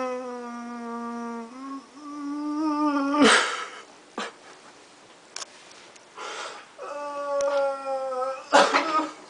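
A man's long, strained whining groans, held on one pitch, from straining with effort: one of about three seconds, then a shorter one near the end. A sharp gasp of breath follows each, and a few faint clicks fall in the quieter stretch between.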